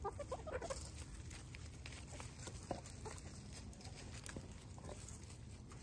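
Backyard chickens clucking, a quick run of clucks in the first second, then quieter, with scattered light taps.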